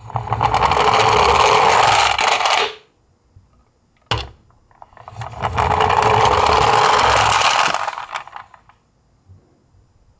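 A toy garbage truck's drive mechanism whirring as it runs across a wooden board. There are two runs of about three seconds each, with a single click between them.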